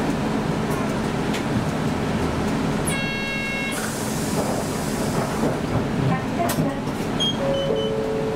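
Route bus's engine running with steady road and cabin noise, heard from inside the bus. A brief electronic chime sounds about three seconds in, and a falling two-note tone near the end.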